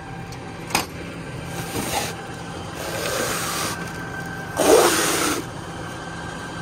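Plastic bale-wrap stretch film rustling and rasping in three bursts as it is pulled off a new roll, the last and loudest about five seconds in, over an engine running steadily. A sharp click comes just under a second in.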